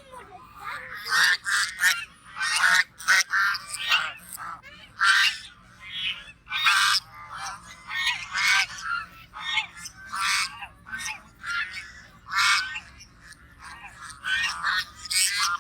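Goose honking over and over: short, harsh calls coming irregularly, about one or two a second.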